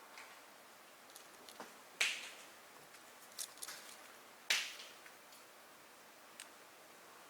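Two sharp swishing scrapes about two and a half seconds apart, each dying away quickly, with a few small clicks and taps between them.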